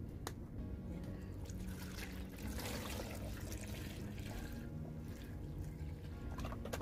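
Fresh milk being poured into a plastic blender jar over chunks of avocado: a steady liquid pour and trickle.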